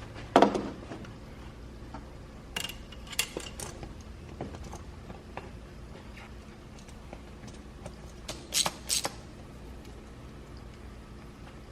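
Knocks and clicks of intake parts and tools being handled as the air filter is pushed onto the intake. There is a thud about half a second in, a quick cluster of clicks around three seconds, and two sharp clacks near nine seconds.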